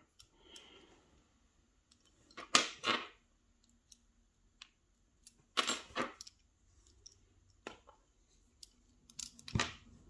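Small metal clicks and clatter of a miniature challenge padlock and small metal tools being handled: three short bursts of rattling a few seconds in, around the middle and near the end, with faint ticks between.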